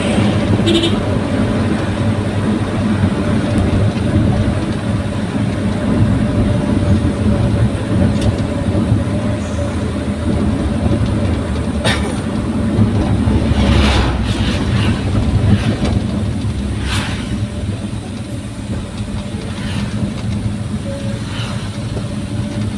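Daihatsu Gran Max pickup with a modified exhaust driving along: a steady low engine and exhaust drone with road noise. The rumble swells a little past halfway, then eases off, with a few light knocks.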